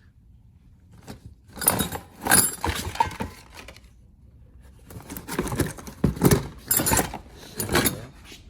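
Small hard parts rattling and clinking as hands rummage through them, in two bouts with a short pause between: a search for vacuum-hose T connectors.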